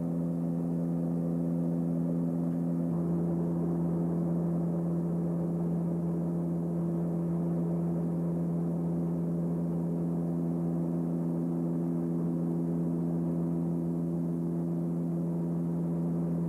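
Steady cabin drone of a Beechcraft King Air 200 in cruise: its twin Pratt & Whitney PT6A turboprops and propellers giving a constant hum with several held tones.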